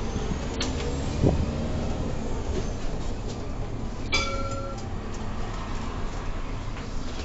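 Irisbus Crossway LE 12M bus running, heard from the driver's cab: a steady low rumble of engine and running gear, with a few clicks and knocks. A short beep sounds about four seconds in.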